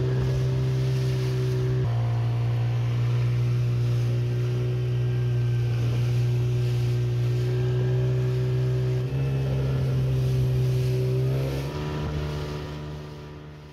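Outboard motor driving an inflatable dinghy at steady cruising speed: a steady drone over rushing noise. Its pitch shifts abruptly three times, and it fades out near the end.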